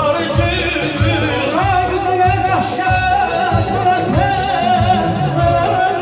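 Loud amplified Azerbaijani dance music with a steady, quick drum beat and a long held, wavering melody line over it.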